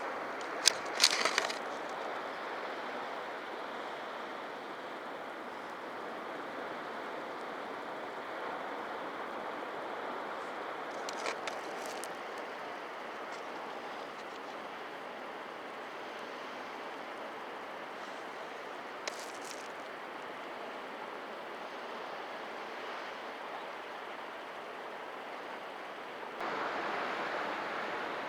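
Sea surf washing steadily against shoreline rocks, with a few short sharp clicks of water in between; a wave surges in louder near the end.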